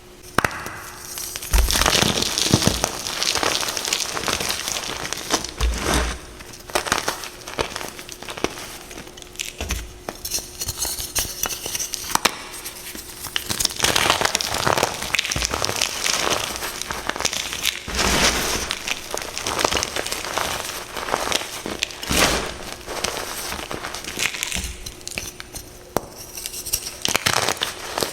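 Reformed blocks of gym chalk being crushed in a series of crunchy squeezes, each a dense crackle of breaking chalk, with occasional low thuds.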